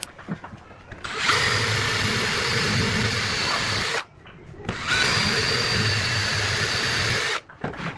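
Handheld power tool motor running in two bursts of about three seconds each, a steady whine that starts about a second in, stops briefly near the middle, then runs again and cuts off near the end.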